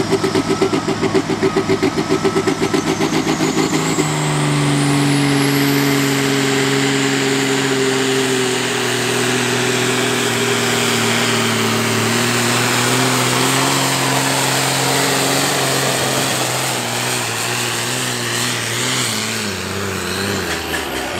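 Turbodiesel International Harvester engine of the IHC 1046 pulling tractor 'Red Obsession', under heavy load pulling a sled. It gives a fast, pulsing rumble, then at about four seconds goes to full throttle. A high turbo whine climbs over the next few seconds, and the engine note sinks slowly as the pull goes on, dropping away near the end.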